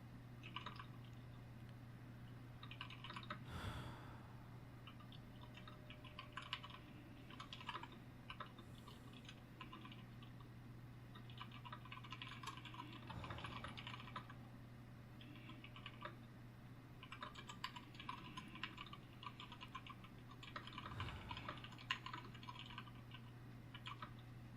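Typing on a computer keyboard: runs of quick key clicks with short pauses between, over a steady low hum. A soft breath is heard three times, a few seconds in, about halfway, and near the end.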